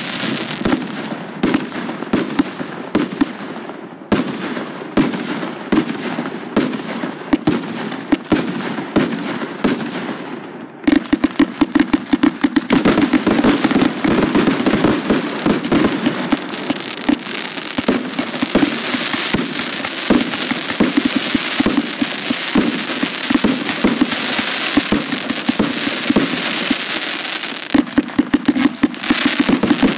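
Fireworks firing: a quick string of launches and reports about two a second, each trailing off in a fizz. About eleven seconds in, it gives way to a dense barrage of crackling bursts and bangs.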